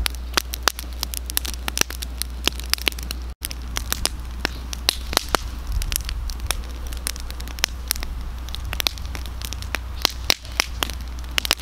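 Split-wood campfire crackling, with frequent irregular sharp snaps and pops over a steady low rumble.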